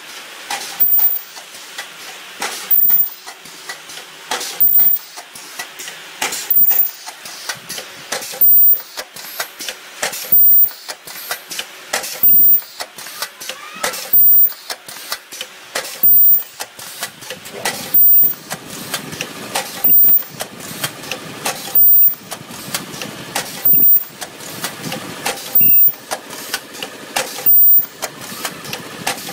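Ultrasonic welding machine cycling through repeated welds on scouring-pad material, about one every two seconds. Each weld is a short, loud burst with a piercing high-pitched whine, and a steady mechanical noise runs between the welds.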